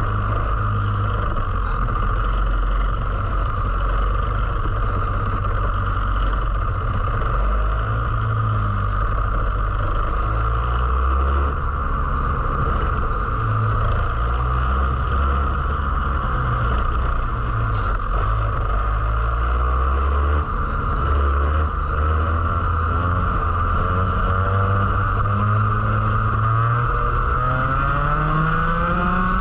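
Onboard sound of a Rotax Max 125cc two-stroke kart engine at racing speed, its pitch rising on the throttle and dropping off into corners over and over, then climbing steadily near the end.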